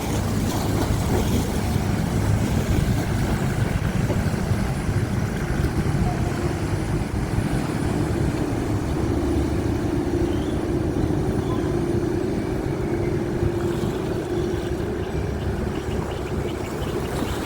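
Chao Phraya Express Boat's diesel engine running, a steady low drone over the wash of river water. A steadier hum comes up about halfway through and fades before the end.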